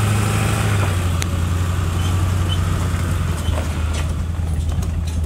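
Truck engine running at low speed, a steady low hum, with a few light knocks and rattles.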